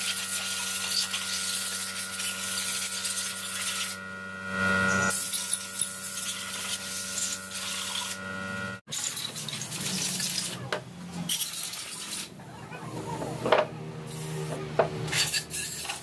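Spray gun on a hose hissing as it washes aluminium engine parts (cylinder head and block) with kerosene, with a faint steady hum underneath. The hiss breaks off sharply about nine seconds in, and then comes back in shorter, uneven spurts with a few light clicks.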